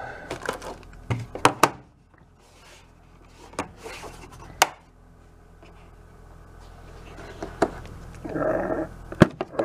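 Hands handling a hard plastic tool carrying case and its fittings: a string of separate sharp clicks and knocks as clips and the inner lid are worked and parts are moved, with a short stretch of denser handling noise near the end.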